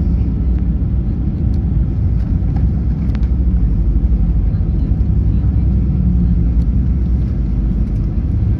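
Steady low rumble in the cabin of a Ryanair Boeing 737 rolling on the ground after landing: its engines and landing-gear wheels are heard through the fuselage.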